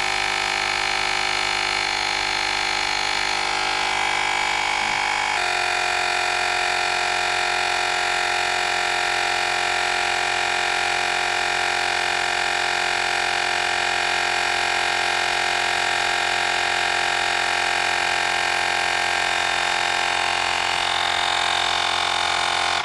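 Portable electric tire inflator running steadily with a humming, whining motor as it pumps up a 3.00-10 mobility scooter tire. Its tone shifts about five seconds in, and it cuts off suddenly near the end, stopping at its preset pressure.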